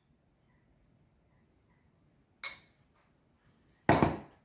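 A metal spoon knocking and scraping on a ceramic plate while diced onion is spooned onto it: a faint knock about halfway through, then a louder, brief scrape near the end.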